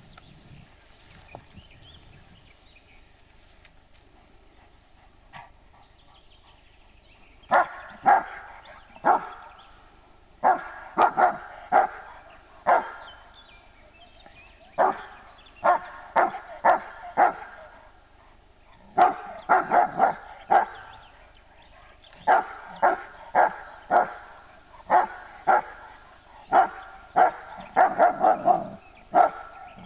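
German Shepherd barking repeatedly in quick volleys of two to five barks, starting about seven seconds in. The barking is aimed at a white-draped figure, alarm barking at a strange approaching shape.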